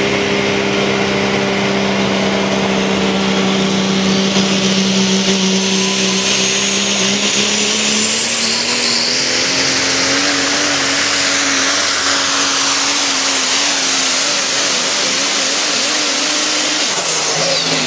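Dodge Ram super stock diesel pulling truck running at full throttle under load with a heavy, steady engine note. A high turbocharger whine climbs steadily in pitch for most of the pull. Near the end the whine drops away quickly as the throttle comes off.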